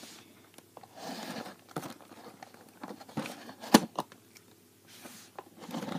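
A cardboard Lego set box being handled and opened by hand: scrapes and rustles of cardboard with scattered light taps, and one sharp knock just before four seconds in.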